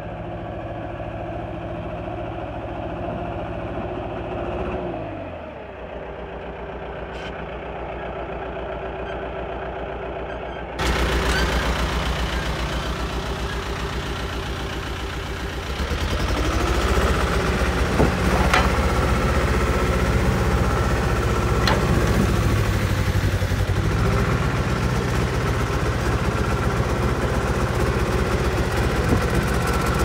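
John Deere 310G backhoe's diesel engine running. Its speed drops about five seconds in. From about halfway it runs louder, its pitch rising and falling as the backhoe arm and bucket are worked, with a couple of sharp clanks.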